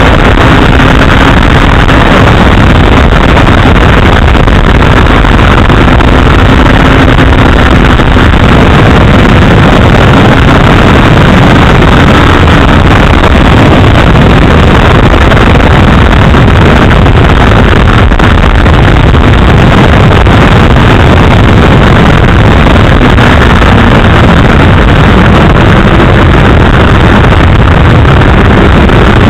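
Heavy, loud wind noise buffeting the microphone of a motorcycle-mounted keychain camera at road speed, with the inline-four engine of a 2008 Honda CBR1000RR faintly audible underneath, its pitch wandering gently up and down.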